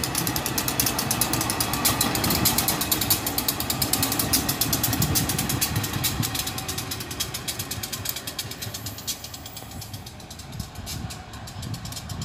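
Diesel-electric locomotive running light, its engine chugging with a fast, even pulse as it moves away. The sound fades through the second half.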